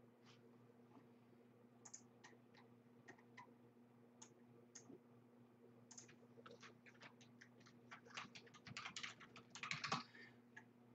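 Faint typing on a computer keyboard: scattered clicks that quicken into a flurry about eight to ten seconds in, over a steady low hum.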